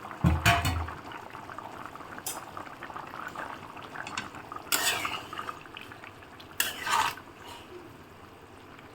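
Metal lid lifted off a cooking pot with a clank and a low thud about half a second in. Then a spoon clinks and scrapes against the pot a few times while stirring the simmering chicken and vegetable stew.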